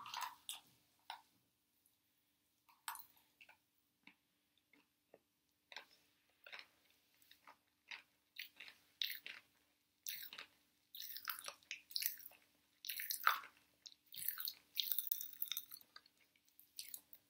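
Faint chewing and mouth sounds of someone eating sour candy: irregular soft smacks and chews, sparse at first and busier from about halfway through.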